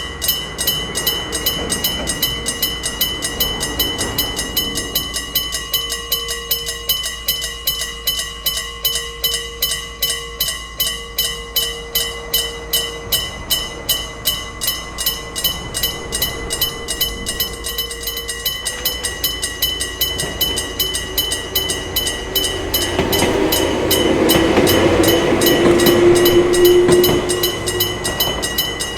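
Japanese level-crossing electric bell ringing steadily, a mechanical striker beating a gong about two to three times a second. Near the end a train passes over the crossing, a louder rush of wheel and running noise with a low hum over the bell.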